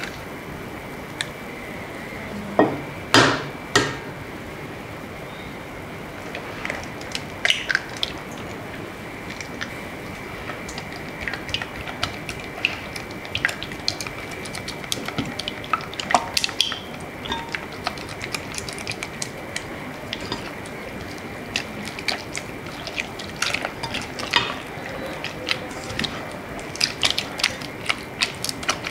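Eggs cracked into a pot of churro choux dough, with a few sharp shell cracks about three seconds in. Then a silicone spatula stirs and squelches through the wet, eggy dough, with scattered small clicks and scrapes against the nonstick pot.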